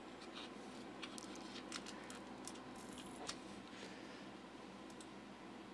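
Faint scattered clicks and rustles of a phone in a hard case and a coiled cable being handled and set down on a towel, over a low room hiss.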